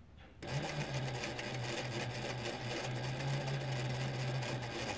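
Juki DDL-8700 industrial lockstitch sewing machine driven by a Reliable SewQuiet 6000SM servo motor, running at very slow speed without fabric and with no oil in the machine. It starts about half a second in and then runs steadily, with a low hum under the mechanical clatter.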